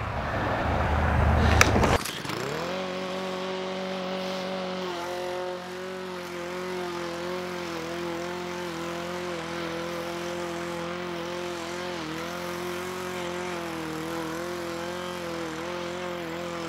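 Walk-behind gas lawn mower running with its blade set low to cut into the thatch. The first two seconds are a louder rushing noise with a couple of clicks; after that the engine note holds steady, sagging briefly in pitch now and then as it takes load.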